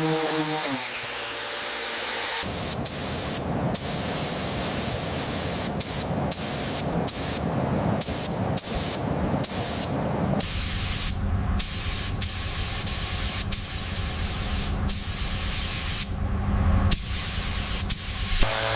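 Hissing spray in a run of short bursts that start and stop abruptly, one after another. About halfway through, a steady low hum joins underneath.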